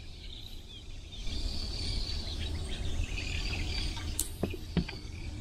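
Outdoor ambience of many small high chirps from birds and insects over a steady low rumble, with one sharp click about four seconds in.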